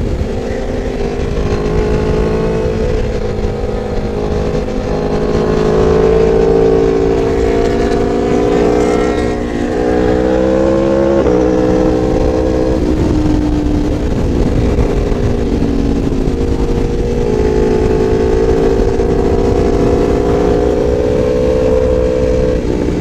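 Sport motorcycle engine heard from the rider's own bike at high speed, its note rising and falling slowly with the throttle over steady wind rush, with a sudden drop in pitch about halfway through.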